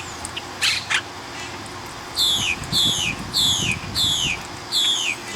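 Monk parakeet calling: two short, sharp calls, then a run of five repeated calls about two a second, each sliding down in pitch.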